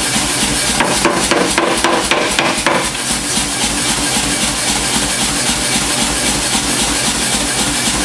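Power hammer striking hot steel in a quick run of blows for about two seconds, roughly six or seven a second, then stopping. A steady machine drone runs underneath throughout.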